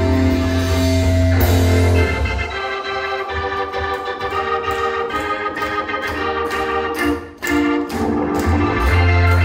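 Live instrumental prog-rock band with Hammond organ chords out front. About two seconds in the heavy bass drops away and the organ carries on over light, evenly spaced cymbal ticks; after a brief break just past seven seconds the full band with bass comes back in near the end.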